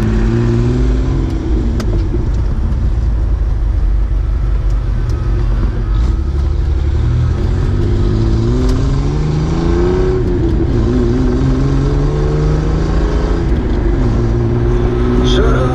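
1991 Chevrolet S10's 2.8-litre V6 through a glasspack muffler, heard from inside the cab while taking off. The engine note climbs, drops back at each gear change and climbs again several times, then holds steady at cruising speed.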